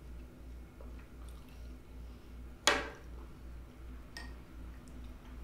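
Quiet eating sounds: soft wet mouth clicks while chewing melon, then a metal fork going into a glass of Sprite to dip a piece of melon. There is one sharper, louder click or clink about two and a half seconds in, and a low hum underneath.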